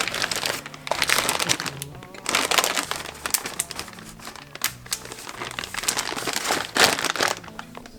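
Close, loud crinkling and rustling, like something being handled, coming and going in irregular spurts with sharp crackles.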